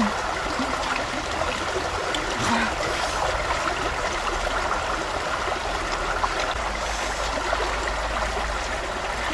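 Shallow mountain river flowing over rocks: a steady rush of running water with trickling close by.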